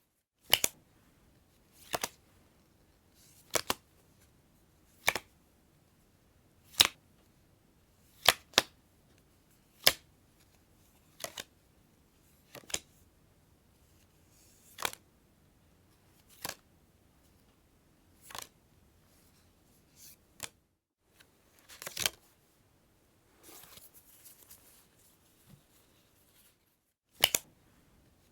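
Playing cards snapping one at a time, a sharp snap, often doubled, about every one and a half seconds, with a brief soft rustle of cards shortly before the last snap.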